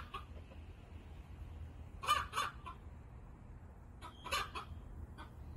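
Chickens clucking in short bursts, one cluster about two seconds in and another about four seconds in, over a faint steady low hum.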